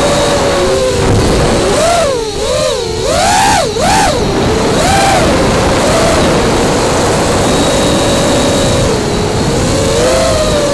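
FPV quadcopter's brushless motors and propellers whining, heard up close from the onboard camera's microphone. The pitch swings up and down quickly with throttle changes a couple of seconds in, then holds fairly steady. Wind and prop-wash hiss sits underneath.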